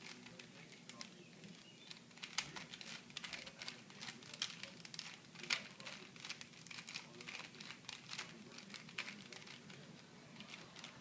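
Rubik's cube being twisted by hand: irregular plastic clicks and clacks as its layers are turned, a few louder snaps among them.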